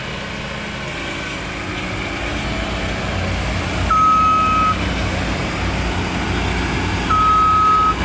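Diesel engine of a heavy machine running and getting louder, with a reverse-warning beeper sounding two long beeps, the first about four seconds in and the second near the end.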